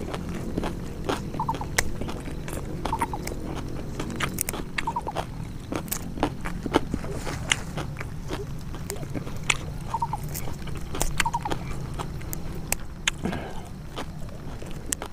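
A person biting and chewing raw leaves and stalks close to the microphone: irregular crisp crunches and wet chewing, over a steady low hum.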